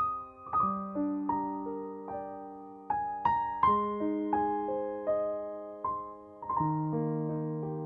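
Background music: a gentle piano melody, notes struck about once or twice a second and left to ring and fade.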